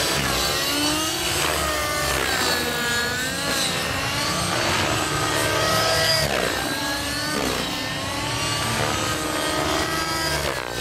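Outrage Velocity 50 N2 nitro RC helicopter, its YS 56 glow engine and rotor blades running under hard load through 3D aerobatic flight. The engine and rotor pitch rises and falls over and over, every second or two, as it lifts off and flips.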